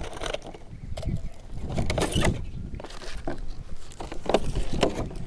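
Drone packaging being handled: plastic and paper rustle and the foam tray knocks as the propeller guards, a plastic bag of spare propellers and the instruction manual are lifted out of the box. There are scattered light clicks and knocks over a low steady rumble.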